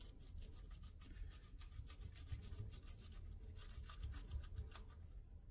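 Tissue-paper wrapping of a firework ball shell being peeled and picked at by gloved hands: faint, rapid rustling made of many small scratches and crinkles.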